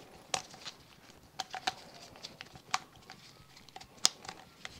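Irregular light clicks and taps of small plastic parts of a motorcycle fuel pump assembly being handled and pressed together by hand, one sharper click about four seconds in.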